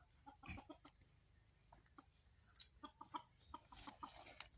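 Red junglefowl (ayam hutan) clucking faintly, with scattered short notes.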